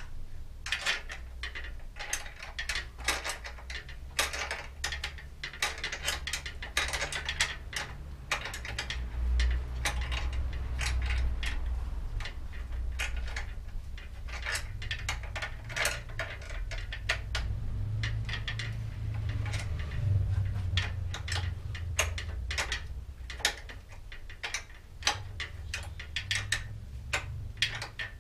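Irregular ratcheting clicks and light metal clatter from work at a bicycle's rear wheel hub, coming in dense runs, over a low steady hum.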